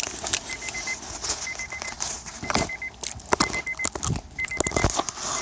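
The Acura Integra's warning chime beeping, a quick run of high beeps about once a second, as from a key left in the ignition with the door open. Over it come sharp plastic clicks and rattles of the wiring connector and the dangling keys being handled under the steering column.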